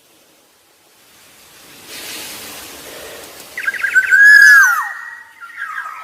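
Black-naped oriole calling: after a soft hiss, a few quick short notes about three and a half seconds in lead into a loud fluty whistle that slides and then drops in pitch, followed by a few more notes near the end.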